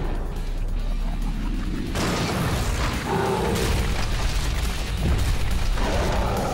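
Animated action soundtrack: background music over a deep rumble, with a heavy boom about two seconds in as a big creature smashes down.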